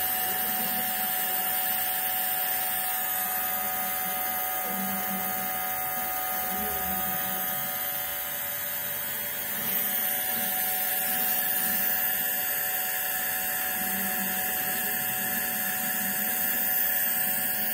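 Compressor nebulizer running steadily: a continuous small-motor hum with a hiss on top, a little louder from about ten seconds in.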